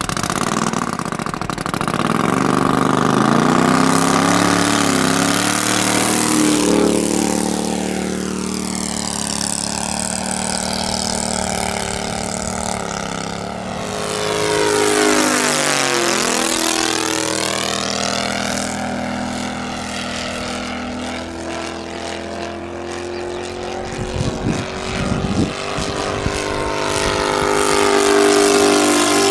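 KOLM 155 engine of a large radio-controlled CARF-Models Spitfire throttling up for the takeoff run and then flying, a steady propeller drone that rises and falls in pitch as the plane moves about. About halfway through there is a sharp sweep in pitch as it passes close. Near the end a brief low rumble joins it.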